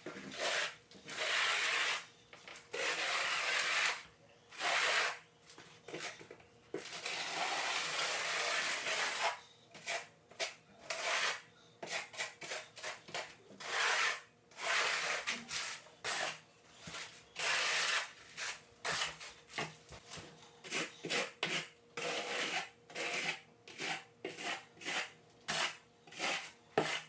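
Quarter-inch notched trowel scraping thinset mortar across a plywood floor, stroke after stroke, combing it into ridges to bed an uncoupling membrane. Long sweeps of a second or two in the first half give way to shorter, quicker strokes later.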